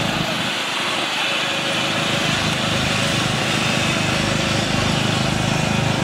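Riding lawn mower's small engine running steadily as it is driven, a little louder in the second half.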